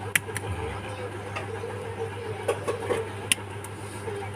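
Sharp plastic clicks as the bezel of a Vivo Y17s phone is pried open: two close together near the start and one more about three seconds in, over a steady low hum.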